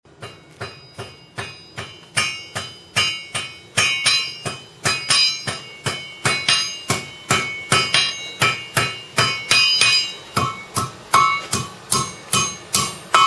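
Blacksmith's hammer striking hot metal on an anvil in a steady forging rhythm, about two to three blows a second, each blow ringing.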